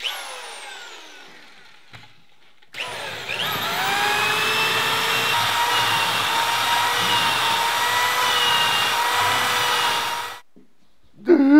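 A sudden hit with falling pitch fades away over about two seconds. Then an electric power tool's motor spins up, rising in pitch, and whirs steadily with a whine before cutting off suddenly.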